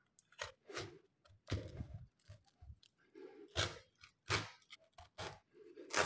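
Durian husk being pried apart by hand along its seam, the fibrous rind cracking and tearing in a string of short, irregular crackles and snaps, the last near the end the loudest.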